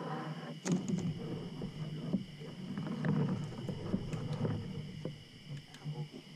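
A night chorus of frogs croaking low and insects trilling steadily, with a few sharp clicks and knocks of gear being handled in a small boat, about a second in.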